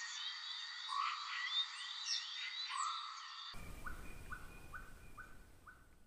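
Repeated chirping animal calls over a steady high hum. About three and a half seconds in the sound changes abruptly to a run of five short rising chirps, about two a second, fading out.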